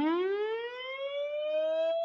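Siren sound effect winding up: a single wailing tone starting low and rising steadily in pitch, levelling off near the end.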